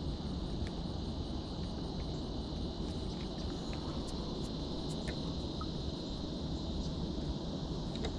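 Insects trilling steadily in one continuous high-pitched tone, over a low rumble, with a few faint clicks.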